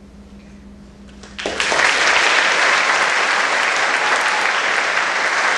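The choir's last faint held note dies away, then audience applause breaks out suddenly about one and a half seconds in and keeps up steadily.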